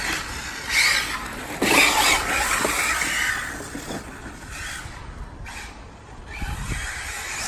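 Electric radio-controlled Arrma Typhon car driving on tarmac: its motor whine and tyre noise surge in bursts as it accelerates, loudest about one to three seconds in, then fade as it drives off.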